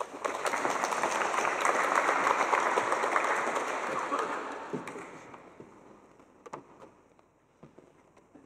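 Audience applauding, dying away about five seconds in; a few faint knocks follow.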